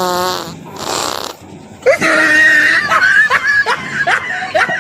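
A fart noise ends at the start. From about two seconds in comes high-pitched laughing and shrieking in short falling bursts.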